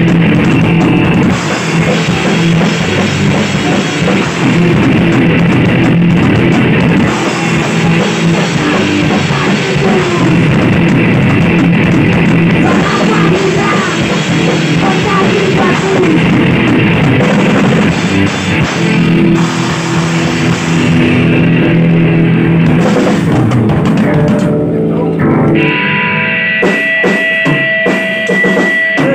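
Punk rock band playing loud in a rehearsal room: drum kit, electric guitar and bass guitar. Near the end the full band stops, leaving a few held notes ringing on with scattered drum hits.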